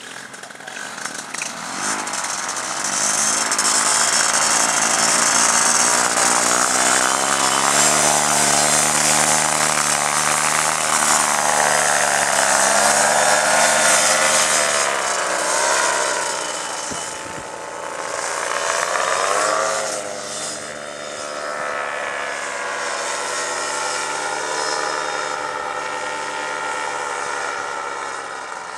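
Backpack paramotor's Vittorazi Moster two-stroke engine and propeller opening up to full throttle about two seconds in for the take-off, running steadily at high power, then dropping and rising in pitch briefly past the middle and growing fainter as it climbs away.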